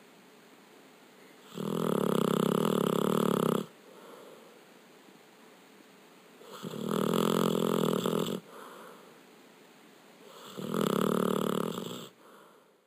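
Sleeping Labrador retriever snoring: three loud, rattling snores of about two seconds each, some four to five seconds apart, with softer breaths in between.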